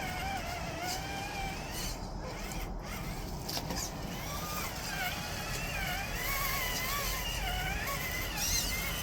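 Electric motor of an RC crawler whining, its pitch wavering up and down with the throttle, over a steady low rumble, with a few short clicks a couple of seconds in.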